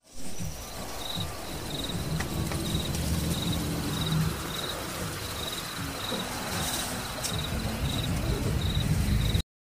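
Crickets chirping in a steady rhythm, about one and a half chirps a second, over an even hiss and a low rumble. The sound cuts off abruptly near the end.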